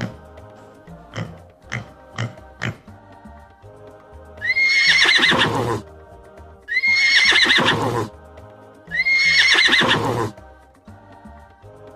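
A horse whinnying three times, each neigh starting high and falling away, over steady background music. A few sharp clicks come in the first few seconds.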